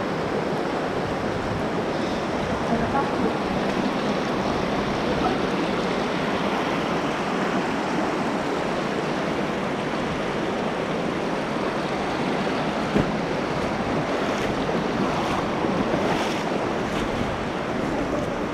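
Steady rushing of water from an underground cave stream, an even hiss. A single sharp knock sounds about two-thirds of the way through.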